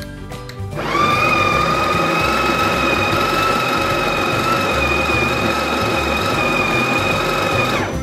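Sage Barista Touch's built-in conical burr grinder running with a steady whine, grinding coffee beans into the portafilter basket. It starts about a second in and stops just before the end. Background music plays underneath.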